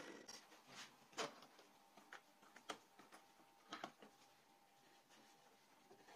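Faint knocks and taps of a wooden board being lifted and handled on a wooden worktable, a handful of short clicks, the loudest a little over a second in.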